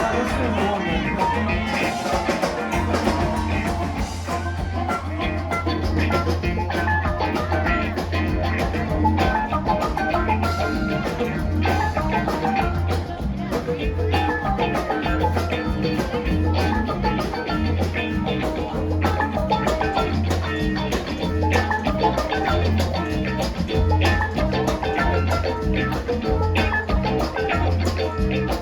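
Live band playing an instrumental passage of a rock song, with a steady pulsing bass line under drums and percussion.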